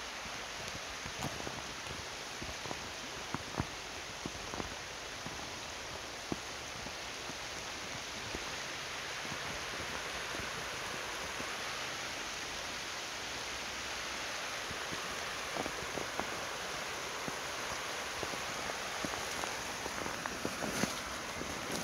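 Creek water running steadily, growing slightly louder midway, with a few scattered crunches of snowshoe steps in snow.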